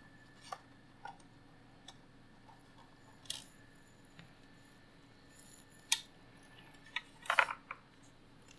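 Scattered light clicks and taps from hands handling a computer case side-panel frame, with a quick cluster of small knocks about seven seconds in. A low steady hum runs underneath.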